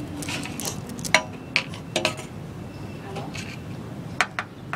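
Sparse light clicks and taps of small plastic toy figures and a toy plate being handled, like tiny dishes clinking.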